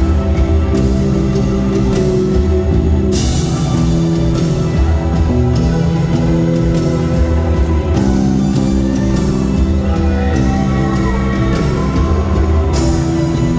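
Rock band playing live in a hall, with electric guitars, bass and drums; cymbal crashes about three seconds in and again near the end.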